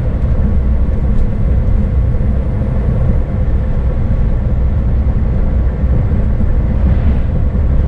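Scania S500 truck cruising at speed, heard inside the cab: a steady low engine drone mixed with tyre noise from the wet road.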